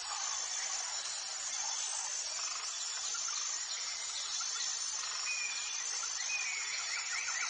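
Steady, high-pitched insect chorus, with a few short bird chirps in the second half and a rapid trill starting near the end.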